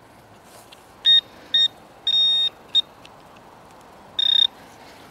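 Metal detector giving five high, steady-pitched beeps, three short and two longer, as it is passed over metal in the dig hole: the sign of a buried target, here a copper-alloy coin.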